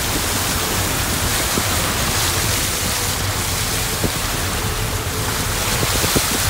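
Car tyres ploughing through muddy floodwater on a road: a steady rushing and splashing wash of water over a low vehicle rumble, with a few faint knocks.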